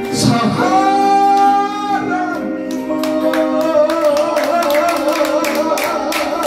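A man singing a Korean trot song into a handheld microphone over a backing track. He holds two long notes, the first for about two seconds and the second from about three seconds in, against a steady beat.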